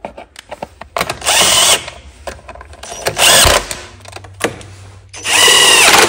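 Cordless drill with a socket driving in the fasteners of the engine cover on a lawn-tractor engine. It runs in three short bursts, and the motor's whine drops in pitch as the last burst winds down.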